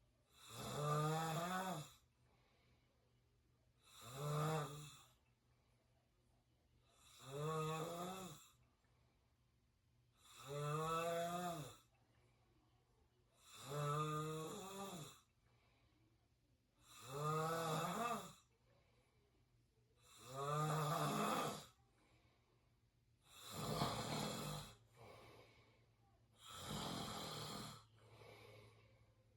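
A person snoring through an open mouth, steady and regular: nine snores about three seconds apart, each lasting about a second with a buzzing pitch. The last two snores are rougher and less pitched.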